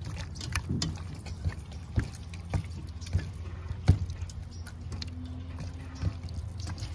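Wet squelching of a hand squeezing and turning raw chicken breasts in a thick yogurt-and-spice marinade, with irregular soft clicks and smacks, over a steady low hum.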